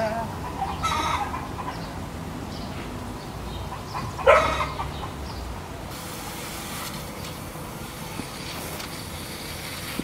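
Alaskan malamute giving short excited 'woo' calls: a brief one at the start and a louder, rising one about four seconds in. From about six seconds, the faint steady hiss of water spraying from a homemade plastic-bottle hose sprinkler.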